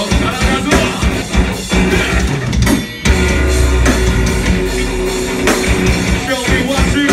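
Metalcore band playing live: distorted guitars, bass and drums at full volume. About three seconds in the music stops briefly, then the whole band comes back in hard, with a vocal line near the end.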